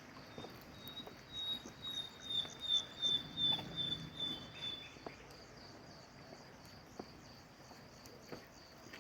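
A night bird calling a run of high, even notes, about four a second, that swell and then fade out over some five seconds, over steady insect chirping. A few soft knocks follow near the end.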